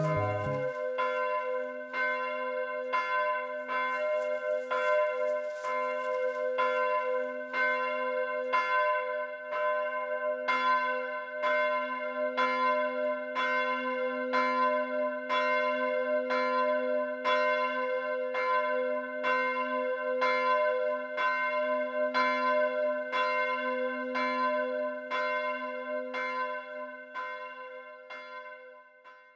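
A single church bell tolling slowly, struck about once a second, its low hum ringing on between strikes: a funeral toll. It fades away near the end.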